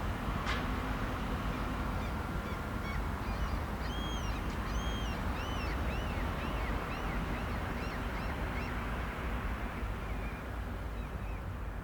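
A bird calling in a quick series of short rising-and-falling chirps over a steady low rumble, with a single click about half a second in.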